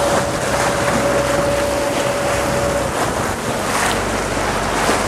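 Tour boat under way along sea cliffs: its engine runs with a low hum under the rush of water and wind on the microphone. A steady high whine carries over it and stops about three seconds in.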